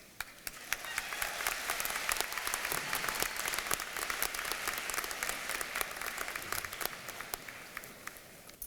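Audience applauding. The clapping starts suddenly, builds over the first second, holds steady, then tapers off near the end.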